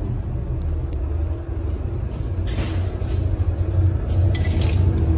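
Steady low rumble of a passenger boat's engines heard from on board, with a faint constant hum over it and brief hissy rustles.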